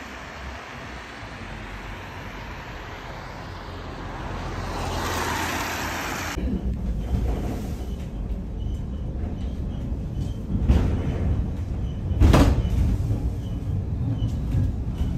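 Traffic on a rain-wet street, the tyre hiss swelling as a vehicle passes, then cut to the inside of the Monte Brè funicular car climbing: a low steady rumble with rattles and knocks, one loud knock about twelve seconds in.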